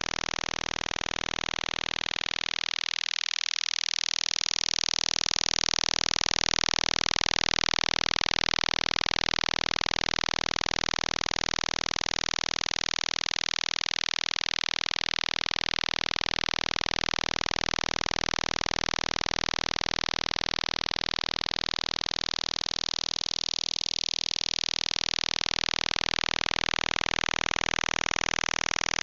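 Shortwave radio signal received through a web SDR receiver: a steady, harsh buzz filling the whole audio band, with a slow swishing drift in tone.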